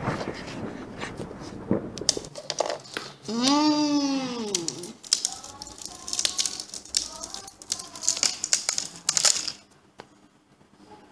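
A single drawn-out cry rises then falls in pitch. It is followed by several seconds of crunching and crinkling as the gingerbread-man cookie is eaten, and this dies away near the end.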